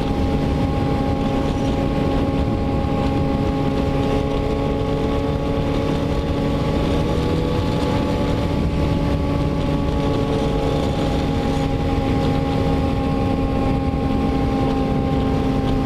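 Motorcycle engine running at a steady cruising speed, holding an even note, with wind rushing over the microphone.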